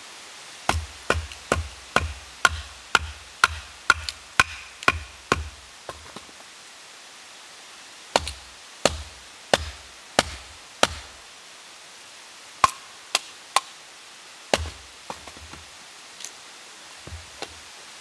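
Firewood being split into kindling with a large knife, each strike a sharp wooden knock. There is a quick run of about a dozen knocks at roughly two a second, then a slower run of five, then a few scattered strikes near the end.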